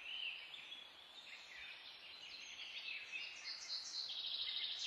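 Songbirds chirping and singing, with quick rising and falling notes and a fast trill near the end, over a faint steady hiss.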